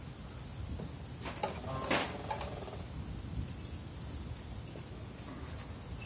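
Cricket giving a steady high-pitched note, with a few sharp clicks and a louder knock about one to two seconds in.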